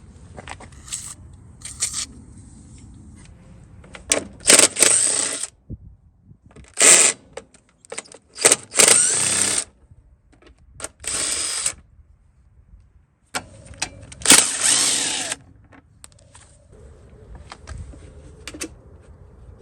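Handheld power tool run in about six short bursts of half a second to a second and a half each, with pauses between.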